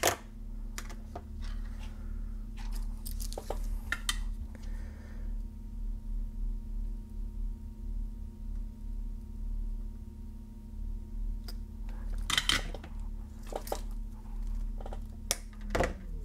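Small clicks, taps and rustles of pliers and a film capacitor being handled and set down on a cutting mat. They come in bursts: a sharp click at the start, a cluster in the first few seconds, a quiet spell, then more near the end. A steady low hum runs underneath.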